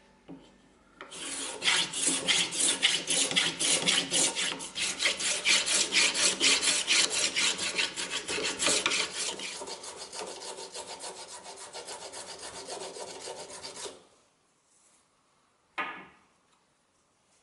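Small hand plane taking many quick, short shaving strokes along a cypress fingerboard blank. The strokes grow softer partway through, then stop, and a single knock follows near the end.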